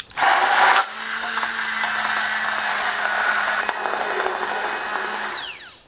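Braun immersion hand blender running in a glass bowl, puréeing tofu and yogurt into a smooth cream. It starts a moment in, loudest for the first half-second, runs steadily for about four seconds, then winds down with a falling whine as it is switched off.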